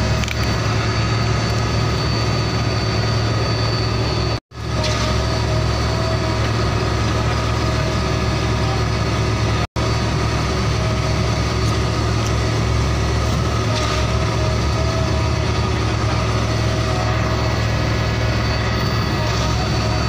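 Steady idling engine drone with a strong low hum, like a heavy truck's engine, for the toy concrete pump truck. It cuts out abruptly for a moment about four seconds in and again near ten seconds.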